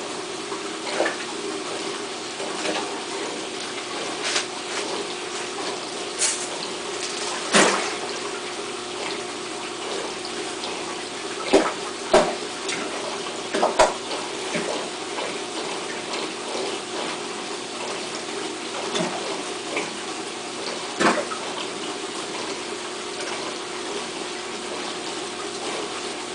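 Aquarium filter running with a steady hum and water trickle. Sharp splashes break in now and then as fish strike feed pellets at the surface, several of them close together around the middle.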